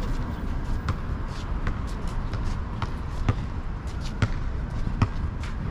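A basketball being dribbled on an outdoor asphalt court: sharp bounces about once a second, over a steady low rumble.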